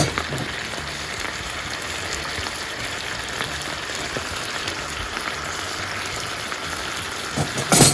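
Chicken chops sizzling in a pan of melted mayonnaise, a steady crackle like light rain. A short clatter near the end.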